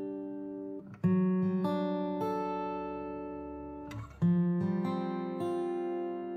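Acoustic guitar music: single notes ringing over held chords, with a louder new chord struck about a second in and another about four seconds in.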